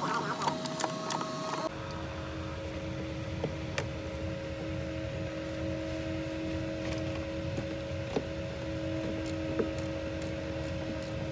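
A steady mechanical hum with two held tones over a low rumble, changing abruptly about two seconds in, with a few light clicks of a hand tool working on metal parts.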